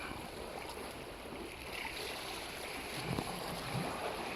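Sea water washing and lapping, a steady rushing noise, with two short low bumps about three seconds in.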